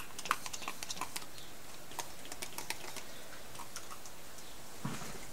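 Scattered light clicks and taps of hands handling a thin plastic stencil and paper on a craft table, with a brief soft rustle near the end.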